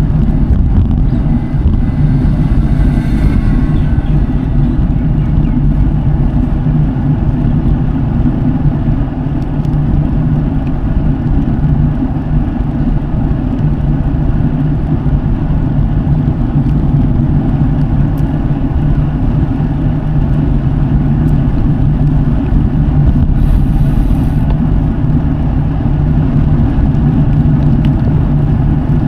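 Road bike tyres rolling on a paved road, a steady low rumble.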